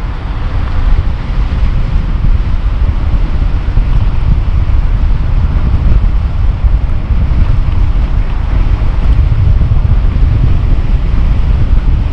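Wind buffeting the camera's microphone as an electric tandem bicycle rides at about 25 to 33 mph: a loud, steady low rumble of rushing air.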